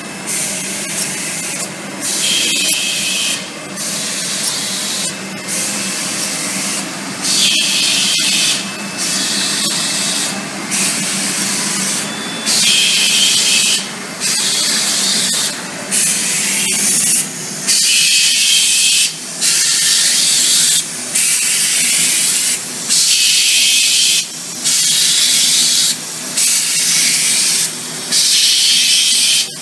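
1998 Esatec Turbotec window patching machine running: a steady mechanical hum under a regular hiss that comes and goes about every one and a half seconds, with a few sharp clicks.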